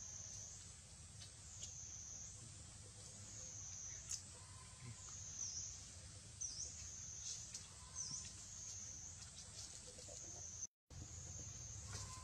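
Faint high-pitched insect drone, typical of cicadas, wavering up and down about once a second, with a few short chirps and a soft low rumble. The sound cuts out briefly near the end.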